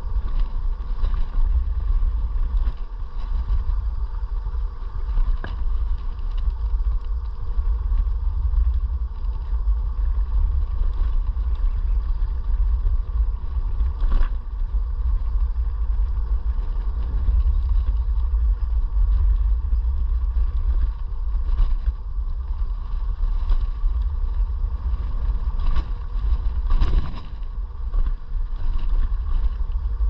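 iScooter E9D electric scooter on the move: steady wind rumble on the microphone and road noise, with a steady hum underneath. Short knocks come as it rolls over bumps, the strongest about halfway through and near the end.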